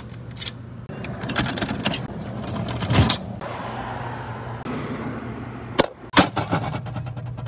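Keys jangling and metal clicks and clanks as the lock and steel doors of a car wash pay station are worked open and its cash box is pulled out. The loudest clank comes about three seconds in, and another sharp clank about six seconds in is followed by a quick run of small clicks, over a steady low hum.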